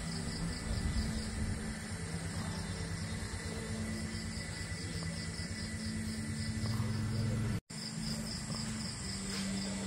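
Insects chirping in a fast, even, pulsing trill over a steady low hum. The sound cuts out for a split second about three-quarters of the way through.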